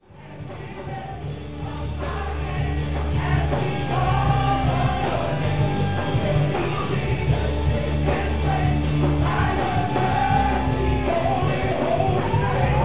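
A gospel praise-and-worship song with a full band, fading in over the first couple of seconds: singers holding long notes over a heavy bass line.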